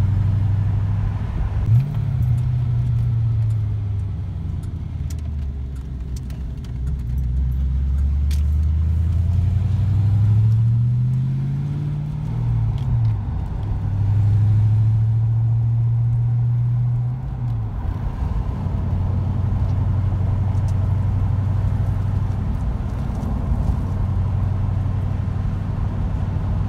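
Ford Fox-body Mustang's 5.0 V8 heard from inside the cabin while driving. The engine note climbs with the revs and drops sharply a few times at the gear changes. It pulls through the shifts smoothly without bucking now that its ECU has been rebuilt.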